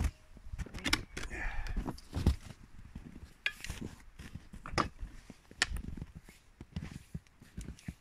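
Metal tongs and utensils being handled against a plywood table and an enamel plate: about half a dozen separate light clicks and knocks.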